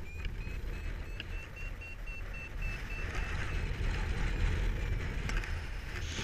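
Paraglider's variometer beeping about three times a second, its pitch creeping slightly upward, the sign of climbing in lift; the beeps fade out about halfway through. Under them, wind rushes steadily over the microphone.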